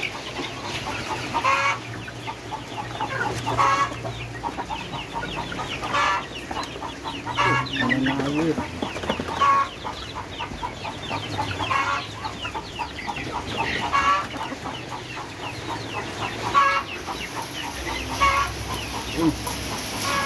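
Village chickens (ayam kampung) in a coop calling: a louder cluck about every two seconds over a steady chatter of quick, high peeps from the young birds.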